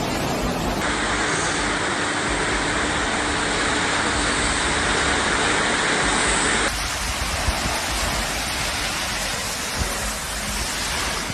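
Steady rushing of water, a dense even roar with no distinct events. Its tone shifts abruptly about a second in and again near seven seconds.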